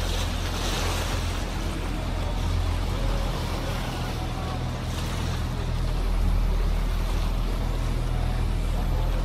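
Tour boat's engine running with a steady low drone, under a wash of wind and water noise.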